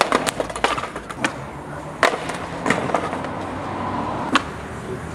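Skateboard clattering over brick paving stones after a bailed ollie down a stair set: a string of sharp knocks, loudest at the start and about two seconds in, over the rumble of the wheels rolling.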